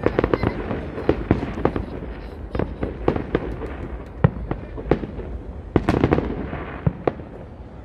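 Aerial fireworks going off: a rapid, irregular run of bangs with crackling in between, thickest around six seconds in.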